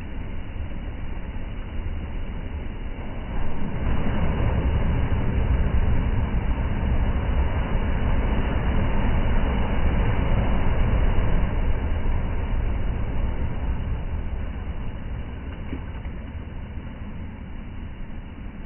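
Wind buffeting the microphone: a low, rumbling rush that strengthens suddenly about three and a half seconds in, holds, then slowly eases off in the second half.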